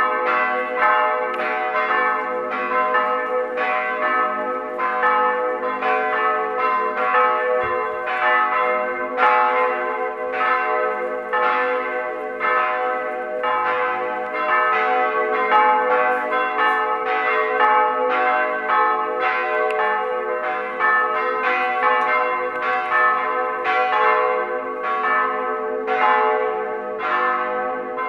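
Church bells of Högsäter Church ringing steadily, their strikes overlapping in an irregular pattern while each tone hangs on between strikes.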